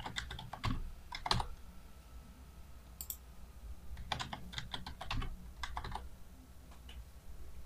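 Typing on a computer keyboard: a password entered and then typed again to confirm it. The keystrokes come in quick runs, one in the first second and a half and a longer one from about four to six seconds in, with a few stray taps between.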